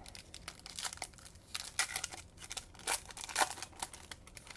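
Wrapper of a Bowman baseball card pack being torn open and crinkled by hand: a quick run of sharp crackles, loudest about two and three seconds in.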